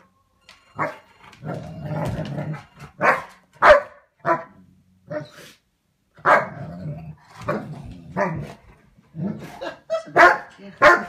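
A puppy growling and barking in short, sharp bursts at an older dog, in the playful standoff of a puppy bluffing a bigger dog. The barks come in irregular clusters, with stretches of low growling between them and a brief pause about halfway through.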